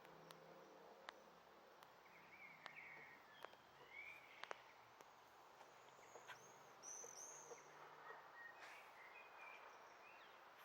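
Faint outdoor background with a few short bird chirps, some higher and arching in the middle, and occasional small ticks.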